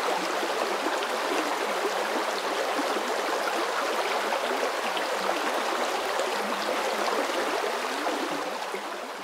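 Stream water rushing steadily, fading away near the end.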